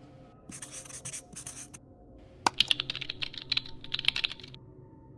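Computer keyboard typing: a quick run of key clicks lasting about two seconds, preceded by a few short scratchy strokes of a marker writing.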